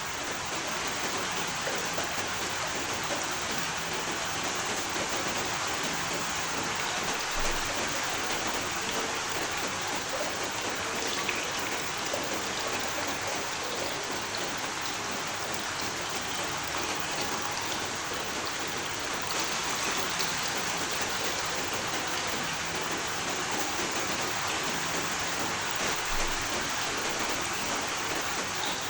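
Steady rain falling, an even hiss of many raindrops hitting a surface.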